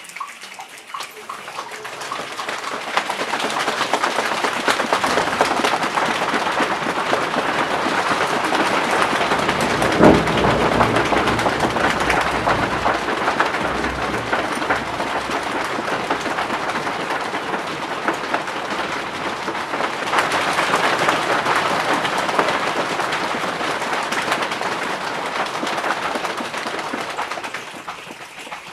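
A rainstorm imitated with hand and body percussion: a dense patter that swells up, eases off, swells again and dies away near the end, with one heavy thump about ten seconds in.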